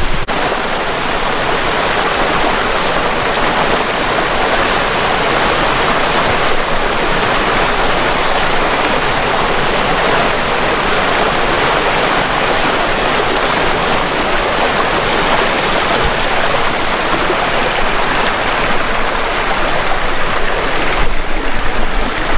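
Steady rush of a small hill stream and waterfall pouring over rocks into a pool, shifting slightly near the end.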